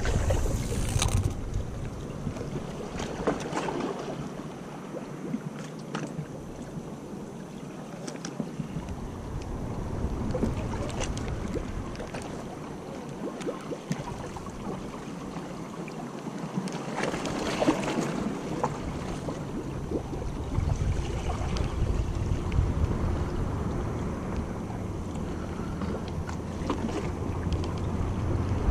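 Wind gusting on the microphone, dropping away twice for a few seconds, over water washing against the jetty rocks, with a few short knocks and swishes from handling the spinning rod and reel.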